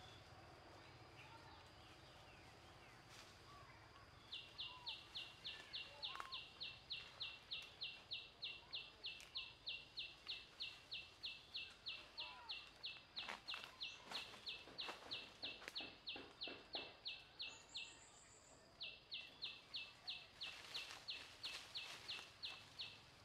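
Outdoor wildlife ambience, dominated by a high, fast pulsing animal call of about four pulses a second. It starts a few seconds in, breaks off for about a second, then resumes. Faint short bird chirps are heard underneath.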